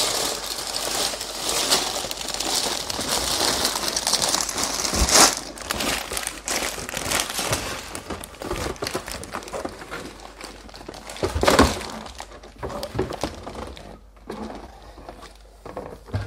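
Plastic bags of LEGO bricks being tipped out of a large cardboard set box onto a table. For about five seconds there is a dense crinkling rustle of plastic, with a thud about five seconds in and a louder one past the middle. Scattered crinkles and rattles follow.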